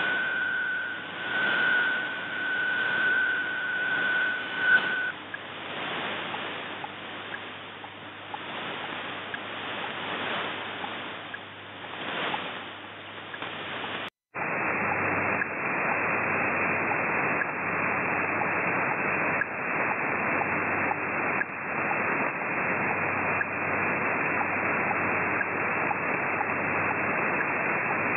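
Shortwave receiver audio: the 8PSK digital data signal of the Shortwave Radiogram broadcast, a steady tone, fades out about five seconds in, leaving hiss and static that swells and fades. Midway the hiss cuts out for an instant and comes back narrower as the receiver's bandwidth filter is narrowed.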